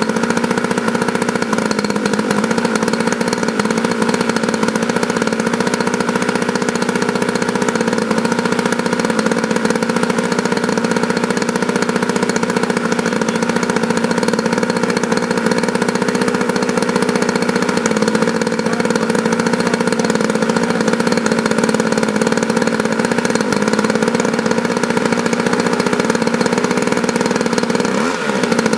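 DLA 56 single-cylinder two-stroke petrol model-aircraft engine running on a test stand at a steady speed, with a brief dip and recovery in pitch near the end.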